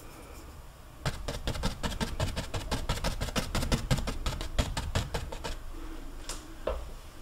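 A paintbrush loaded with oil paint stroked rapidly back and forth on a stretched canvas: a quick run of scratchy brushing strokes with soft thuds from the canvas, lasting about four seconds and starting about a second in. A couple of single strokes follow near the end.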